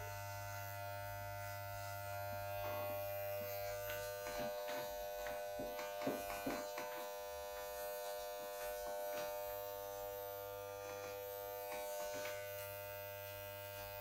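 Electric hair clippers buzzing steadily while trimming the back of the neck during a fade. A few faint clicks come in the middle.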